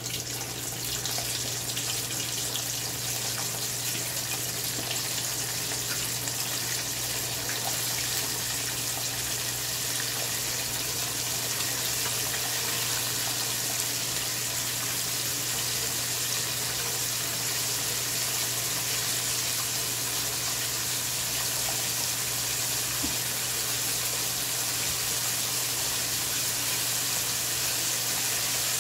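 Battered chicken wings deep-frying in hot oil in a wok: a steady, continuous hissing sizzle of bubbling oil, with a low steady hum underneath.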